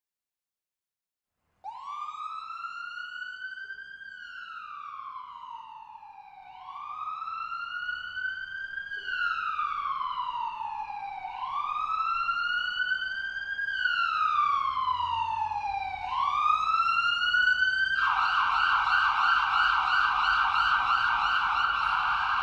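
Emergency vehicle siren starting about a second and a half in. It begins with a slow wail, rising and falling in pitch about every four and a half seconds for four cycles, then switches to a rapid yelp near the end. It grows steadily louder throughout.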